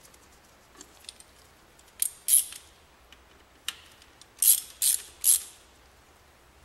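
Small hand ratchet clicking in several short bursts of back-strokes while driving a T30 Torx screw back in.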